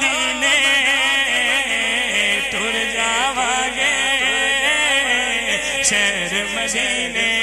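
Devotional singing: a male voice sings a Punjabi naat through a microphone and PA, its notes held and bending up and down in a chant-like melody.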